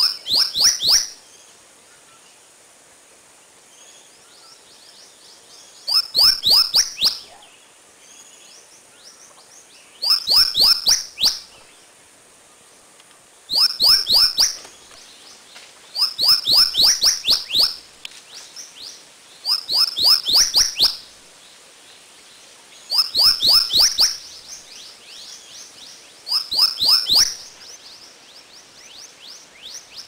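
A songbird singing the same short phrase again and again, every three to four seconds: a rapid run of four or five high, falling notes.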